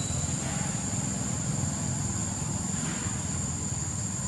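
Outdoor ambience: a steady low rumble with a continuous high-pitched whine over it.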